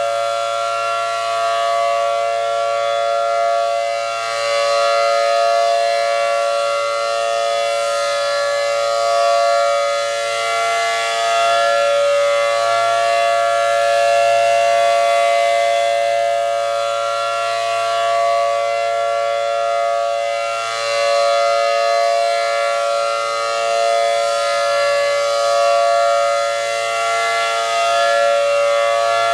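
ACA Allertor 125 rotating electro-mechanical siren with a dual-tone 10/12-port rotor, sounding a steady full-alert tone: a loud chord of several held pitches. It swells and fades every few seconds as the siren head rotates.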